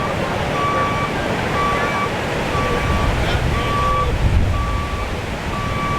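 A vehicle's backup alarm beeping steadily, one half-second beep about every second, over a loud low rumble.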